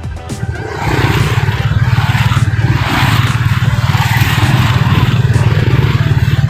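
A small vehicle's engine running steadily with road and wind noise; its low throb gets much louder about a second in and then holds.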